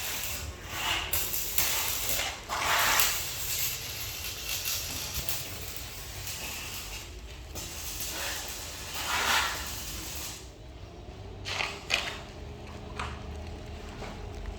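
Metalwork on a vehicle door: irregular bursts of hissing and crackling, with a few sharp clicks in the last few seconds.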